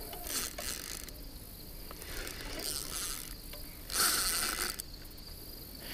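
Fishing reel being cranked in three short spells while a hooked carp is played in, the last spell the loudest. Behind it, a steady chorus of insects.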